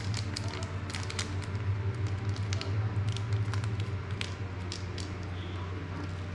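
Small irregular clicks, ticks and rustles of hands handling small plastic drone-frame parts and a plastic parts bag, over a steady low hum.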